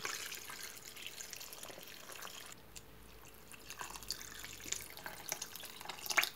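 Water pouring from a kettle into a Thermomix's stainless steel mixing bowl onto chopped vegetables, a faint steady splashing trickle. A short louder knock comes right at the end.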